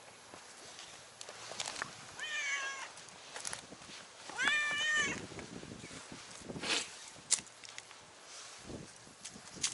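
Cat meowing twice: a short meow about two seconds in, then a longer, louder one about four and a half seconds in. Light scuffs and clicks are heard between and after the meows.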